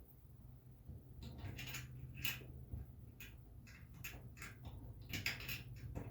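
Faint, irregular light clicks and taps of small metal hardware being handled while nuts are started on the fuel pump's mounting studs, over a steady low hum.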